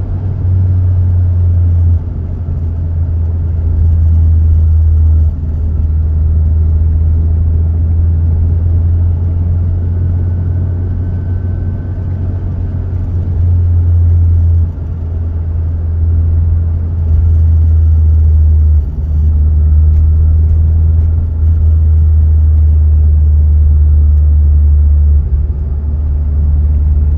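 Inside the cabin, the 2006 Honda Civic Si's K20Z3 four-cylinder engine and the tyres make a steady low drone while the car drives. The loudness steps down and back up several times, about every few seconds.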